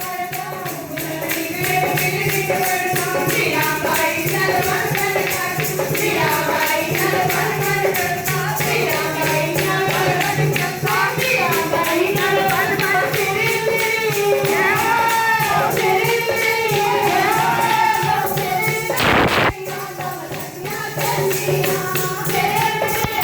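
Voices singing a devotional kirtan chant over hand percussion keeping a steady, even beat. About three quarters of the way through, a brief burst of rushing noise cuts across the singing, after which it is a little quieter.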